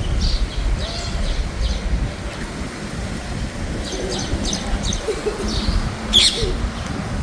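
Small birds chirping in short, repeated high chirps, with one louder chirp near the end, over a low steady rumble.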